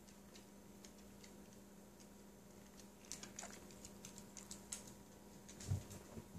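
A cat chewing lettuce: faint, irregular crisp clicks and crunches, thickest from about halfway through, with a soft low thump near the end.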